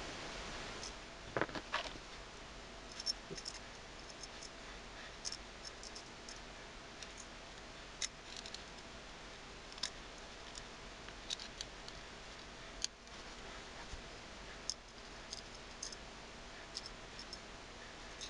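Small screwdriver turning screws that fasten metal side rails to a hard drive, with the rails and screws handled in between: faint, irregular metallic clicks and ticks over a steady hiss, a few louder clicks about a second and a half in.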